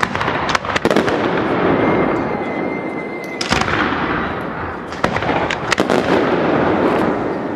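Aerial fireworks display: shell bursts going off in quick succession, about seven sharp bangs, with dense crackling between them. A thin, steady high tone is held for about a second and a half near the middle.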